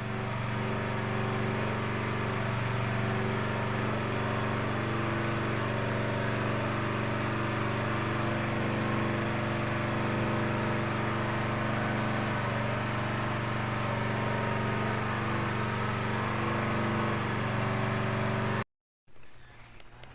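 Toyota Kijang engine running steadily at idle, then cut off abruptly near the end.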